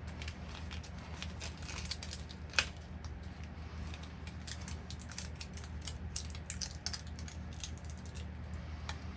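Small irregular clicks and crinkles of hands handling a package of wheel-balancing clay and pinching off a piece, with one sharper click about two and a half seconds in.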